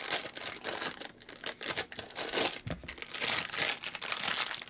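Foil food wrapper crinkling and rustling in irregular bursts as it is handled and unwrapped by hand.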